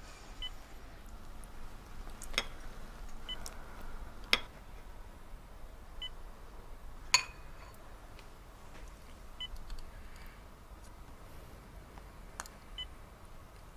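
Short high beeps from a bedside patient monitor, one about every three seconds. Between them come a few sharp clinks of a porcelain spoon against a bowl, the loudest about halfway through.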